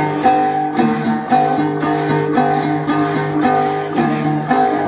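Thai folk dance music led by plucked gourd lutes (tính tẩu), playing a repeating melody over a steady low drone in short phrases about once a second.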